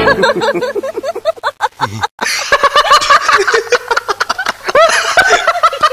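Men laughing loudly in rapid, repeated bursts, broken by a brief cut about two seconds in.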